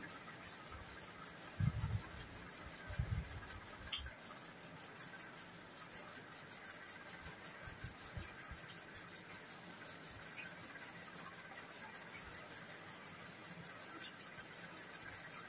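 Quiet eating sounds: hands mixing rice in steel plates and chewing, over a steady faint hiss, with a few low thumps about two, three and four seconds in.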